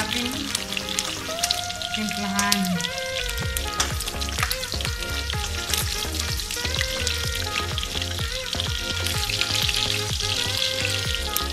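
Pork belly cubes frying in a wok: a steady sizzle with many sharp crackles and spatters, as a wooden spatula stirs and turns the pieces in the pan.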